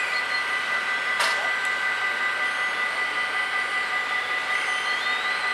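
Dutch level-crossing bells ringing continuously, a steady high ringing tone, as the crossing is closed for an approaching train. A brief sharp click sounds about a second in.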